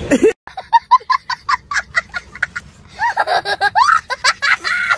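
A young child laughing hard and high-pitched: quick short bursts at first, then longer rising-and-falling laughs from about three seconds in.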